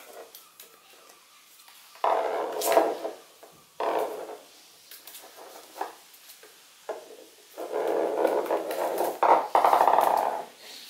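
Toy terrier puppy scrabbling and scraping on a wooden floor while playing, in several bursts: a short one about two seconds in, another near four seconds, and a longer one of about three seconds near the end.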